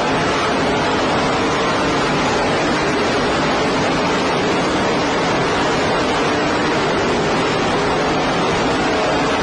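Race cars' engines running at speed during the race, heard as a steady, loud wash of noise with faint wavering engine tones, through a poor-quality, distorted recording.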